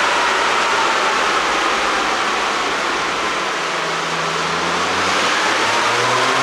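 Range Rover Sport P360's 3.0-litre straight-six engine and road noise on the move. The engine note eases off and falls in pitch, then from about halfway it builds and rises again as the car accelerates, with no exhaust pops.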